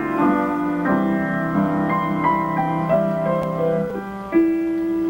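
Piano playing a slow melody over held chords, an instrumental lead-in before a song. A new long chord comes in about four seconds in.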